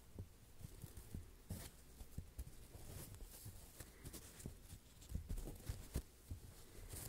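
Foam blocks handled close to the microphone: soft, irregular low thumps and bumps several times a second. Two brief scratchy brushes come about a second and a half in and near the end.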